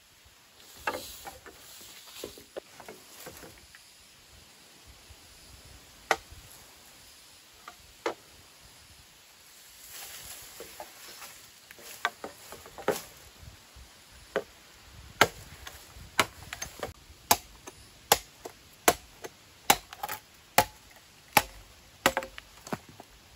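Machete chopping. A few scattered strokes come first, then a steady run of sharp strikes, about one and a half a second, over the last eight seconds.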